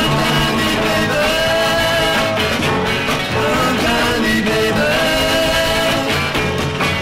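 1967 garage rock record playing: a rock band with singing.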